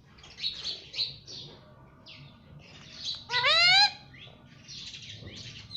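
Pet parrot making soft chirps and chatter, then one loud rising call about three and a half seconds in.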